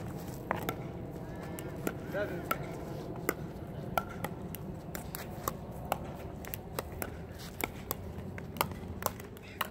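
Pickleball paddles striking the hollow plastic ball in a short-game dinking rally, with the ball bouncing on the hard court: sharp, irregular pops about two a second. Faint voices and a steady low background rumble sit beneath them.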